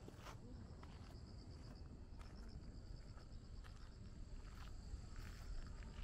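Insects chirping in a steady, rapid pulsed trill, with a thinner steady high note above it. Faint footsteps sound roughly once a second under a low outdoor rumble.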